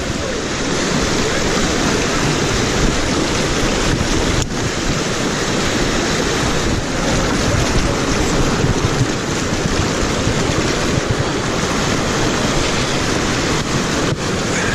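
Rushing whitewater of a river rapid, loud and steady, churning right against the microphone.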